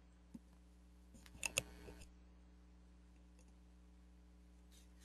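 Near silence: a faint steady low hum of room tone, with a few faint clicks, the strongest two about a second and a half in.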